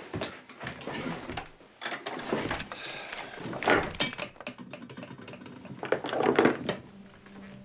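A wooden dresser drawer being pulled open and rummaged through, with small glass bottles clinking and knocking together inside it. The loudest knocks come about halfway through and again near the end.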